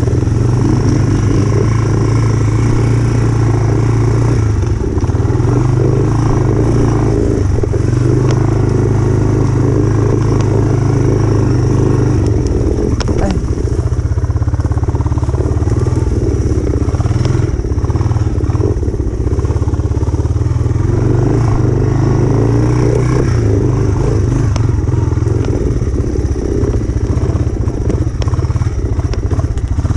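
Motorcycle-type engine of a motor trike running steadily, its pitch shifting up and down a little, with a few faint clattering knocks.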